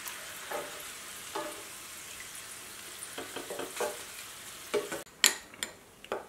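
Cassava slices deep-frying in hot oil with a steady sizzle, a metal slotted spoon scraping and knocking in the pan as they are stirred. About five seconds in the sizzle cuts off abruptly, and a metal spoon clinks sharply in a small glass bowl of chilli powder.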